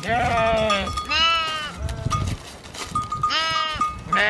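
Sheep bleating, four calls in a row with short gaps between them, some higher-pitched than others.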